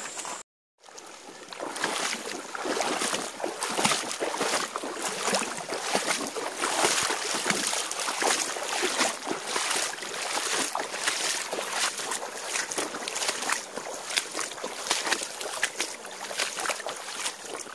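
Wading through shallow river water, with irregular splashing at each step. The sound drops out briefly just after the start.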